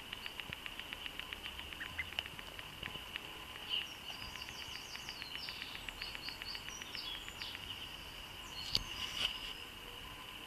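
Duckling peeping: a run of short high peeps from about four to eight seconds in, over a steady fast pattering tick, with a sharp snap near nine seconds.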